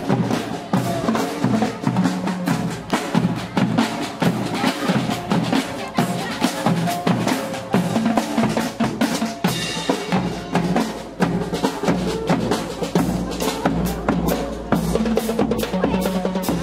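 Marching band playing close by: a bass drum and snare drums beat a quick, steady march rhythm, with saxophones holding and changing notes over the drums.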